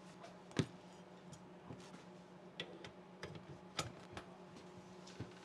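A handful of light, sharp clicks and taps of a metal AR armorer's wrench being picked up and fitted onto a rifle's muzzle brake. The sharpest comes about half a second in.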